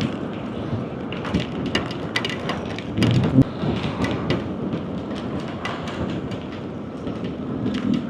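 Light rain falling, with many separate drops ticking close by over a steady hiss. About three seconds in there is a brief louder low rumble.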